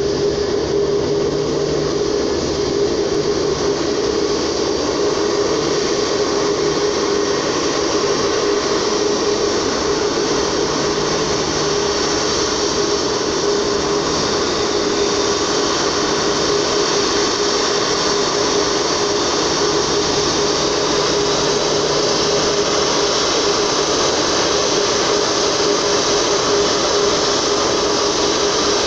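Four Rolls-Royce Trent 500 turbofans of an Airbus A340-600 running at taxi thrust as the airliner taxis toward the listener. The jet noise is a steady whooshing hiss over a constant hum, and the hiss grows a little stronger in the second half.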